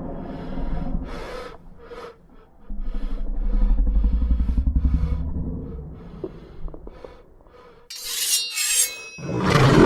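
Rasping, scraping strokes repeated about twice a second, then a loud, low, rapidly pulsing rumble for a few seconds. Near the end come sharp high bursts and a loud, noisy swell.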